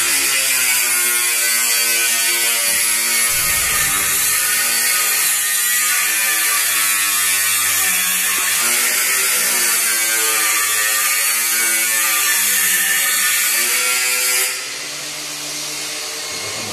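Angle grinder cutting through a metal apartment door, its motor whine wavering up and down in pitch as the disc bites into the metal. It stops sharply about two seconds before the end.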